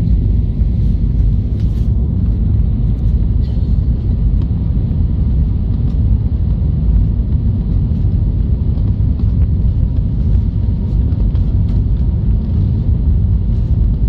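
Steady low rumble of an Airbus A320 cabin in flight on approach: engine and airflow noise heard from a window seat, with a few light clicks over it.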